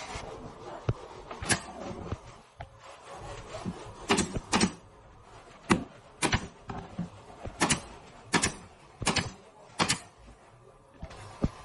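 Sharp knocks and clacks of wood and tools being worked on, about ten at irregular intervals over a faint steady background.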